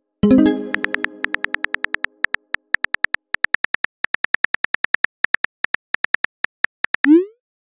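Simulated phone keyboard typing: an even run of sharp key clicks, several a second. It follows a short ringing message chime just after the start and ends in a brief rising send whoosh near the end.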